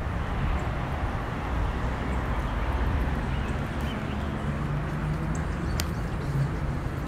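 Steady outdoor background noise with a low rumble, and a faint low hum coming in about four and a half seconds in.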